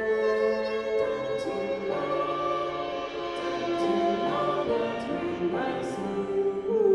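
Live chamber music from a violin, bassoon, piano and percussion quartet: long held notes layered over one another, with several slides in pitch up and down and a few light high accents.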